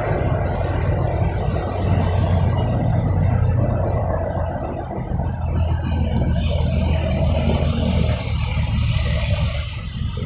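Diesel engines of heavy trucks running as they pull slowly around a tight bend one after another: a steady low rumble.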